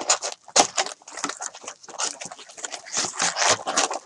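Plastic shrink wrap and foil trading-card packs crinkling and rustling in hands as a box is unwrapped and its packs handled: a continuous run of irregular crackles.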